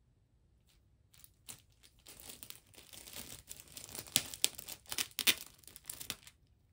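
Clear plastic bag crinkling as a cat paws and noses it: quick, sharp crackles that start about a second in, grow loudest in the middle and stop shortly before the end.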